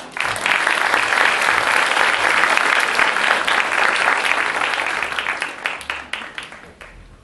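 Audience applauding, a dense patter of many hands clapping that thins out and dies away over the last two seconds.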